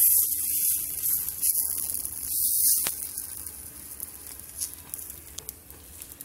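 Red lentil chilla batter sizzling on a hot tawa as it is spread with a ladle. The hiss is loudest for the first three seconds, swelling and dipping with the strokes, then fades, over a low steady hum.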